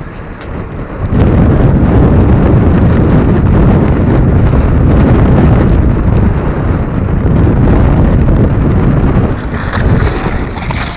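Wind buffeting the microphone of an action camera carried on a moving bike: a loud, low rumble that starts about a second in and eases near the end.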